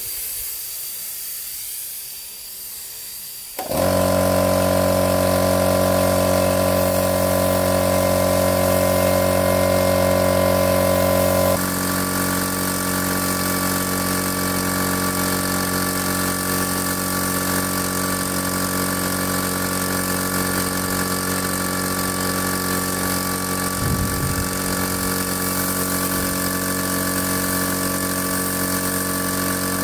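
A steady hiss, then an engine comes in abruptly about four seconds in and runs steadily. Its note changes about eight seconds later, then holds steady.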